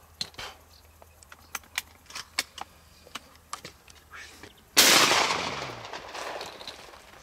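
A single shotgun shot about five seconds in, sudden and loud, its echo dying away over about two seconds. Before it, a scatter of faint small clicks.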